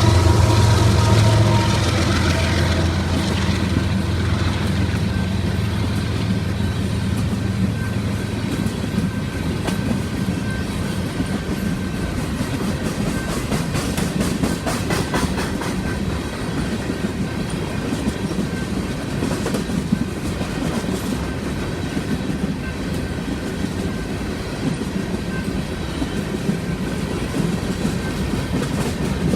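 Union Pacific empty coal train passing. A pitched horn note fades out in the first second or two, and the diesel locomotives' low engine hum dies away over the next several seconds. The empty coal cars then roll by with steady clickety-clack over the rail joints.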